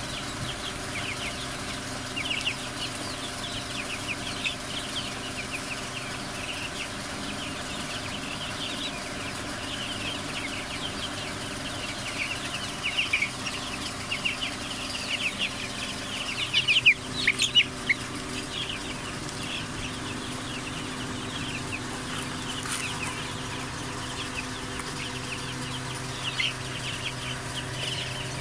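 A flock of young Lohmann Brown chicks peeping continuously with short, high, falling calls, with a louder flurry of calls a little past the middle. A faint steady hum runs underneath.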